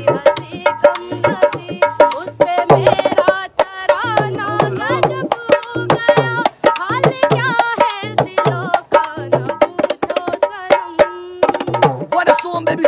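Dholak, a two-headed barrel drum, played by hand in a quick steady rhythm of deep bass strokes and sharp slaps, with a voice singing a Hindi song over it.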